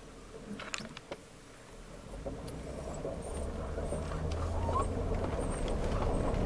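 2003 Chevrolet Tahoe pulling away and slowly gathering speed on gravel. Engine and tyre noise build steadily louder from about two seconds in, after a few light clicks.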